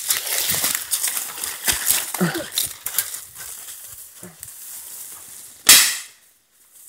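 Leaves and twigs rustling and crackling as someone pushes quickly through dense brush, with one brief louder burst near the end.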